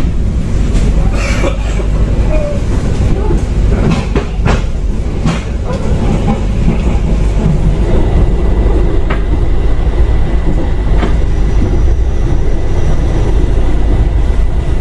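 A moving passenger train heard from inside the carriage: a steady low rumble, with sharp clacks here and there as the wheels cross rail joints.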